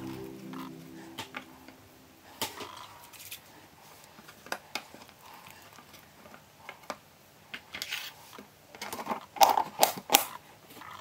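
Wet charcoal sourdough dough is handled in a clear plastic tub during a coil and fold, with scattered soft knocks and clicks of the tub. Near the end the plastic lid is pressed onto the tub in a quick cluster of louder clicks and snaps.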